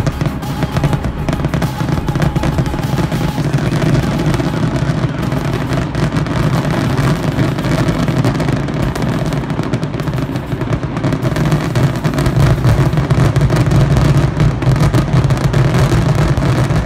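Dense fireworks barrage: many shells going off at once, their bangs and crackling merging into a continuous loud rumble.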